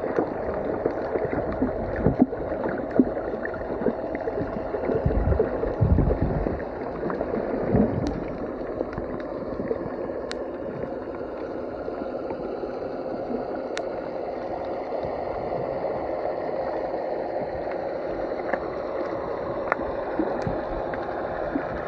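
Muffled underwater water noise picked up by a submerged camera: a steady churning rush, with low thumps about five to eight seconds in and a few sharp clicks.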